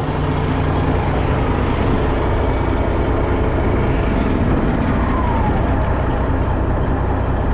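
Semi truck's diesel engine running steadily with an even low drone.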